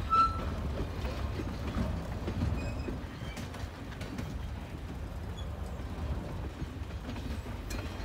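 Double-stack intermodal well cars rolling past, wheels rumbling and clicking over the rail joints. A brief high wheel squeal comes right at the start.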